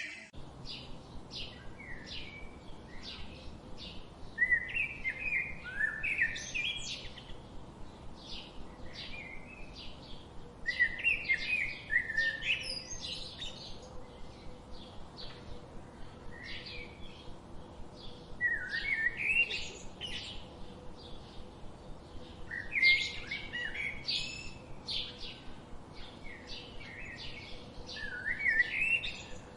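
Birds chirping: a steady run of short, high chirps, about two or three a second, broken every few seconds by louder twittering phrases of rising and falling notes.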